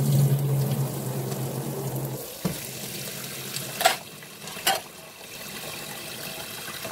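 Kitchen tap running into a stainless steel sink, with a low hum that stops about two seconds in as the stream moves into a plastic bowl of sticky rice being rinsed. Two sharp knocks come near the middle, then the water runs on more quietly into the filling bowl.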